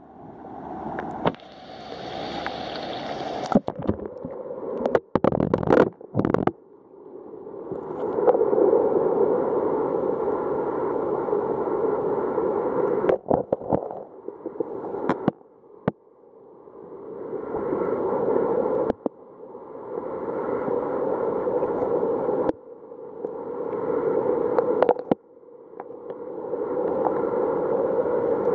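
Muffled water sloshing and rushing heard through a waterproof camera's microphone held under water in a tide pool: a dull rush that swells over a few seconds and cuts off suddenly, again and again. Sharp knocks and clicks of the camera body against rock and hand in the first several seconds.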